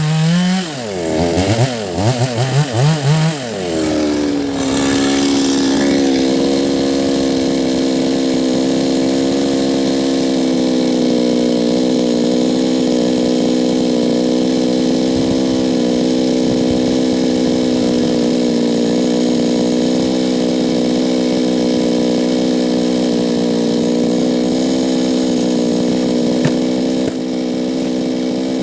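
Two-stroke chainsaw working on the roots of a large rain tree stump. For the first few seconds its revs rise and fall several times, then it holds a steady, high full-throttle note. The note gets a little quieter near the end.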